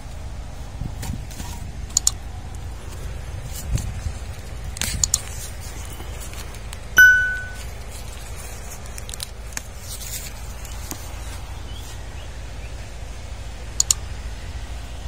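A steady low rumble, with a few sharp mouse-click sound effects and, about seven seconds in, a single bright bell ding that rings out for about half a second. The clicks and ding are the sound effects of an animated like-and-subscribe button.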